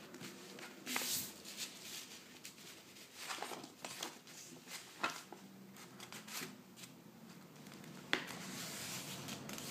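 A sheet of paper rustling and being creased by hand as a paper airplane's wing is folded, in short scattered brushing strokes with a sharp tap near the end.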